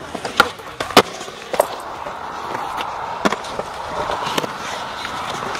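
Skateboard wheels rolling on smooth concrete in a steady rumble, broken by several sharp clacks of the board hitting the concrete, the loudest about a second in.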